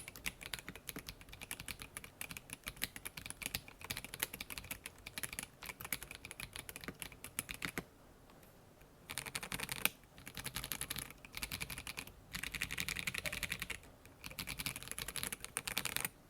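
Mechanical keyboard with stock Akko Lavender Purple tactile switches on a polycarbonate plate, gasket-mounted in an acrylic case, being typed on: a steady run of fast keystrokes, a pause of about a second, then several short bursts of rapid key presses.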